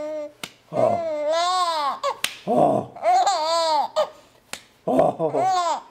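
A four-month-old baby laughing in three squealing bouts, each about a second long, the pitch arching up and down. A few sharp hand claps fall between the bouts.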